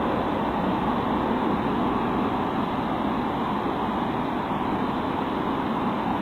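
Steady, unbroken background noise, a constant hiss and rumble, from a Ring doorbell camera's microphone, sounding muffled with no high end. No distinct event stands out.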